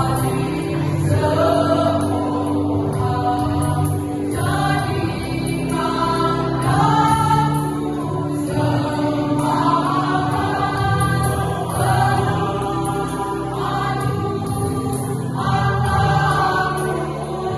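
A choir singing a song, with steady low held notes sounding beneath the voices.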